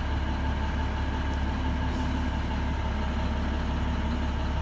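Navistar MaxxForce DT 466 inline-six turbo diesel idling steadily at about 700 rpm, heard from inside the bus.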